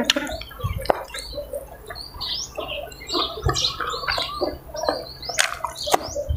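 Close-up chewing and wet mouth sounds from a mouthful of sticky rice and raw beef koi, with irregular smacks and a few sharp clicks.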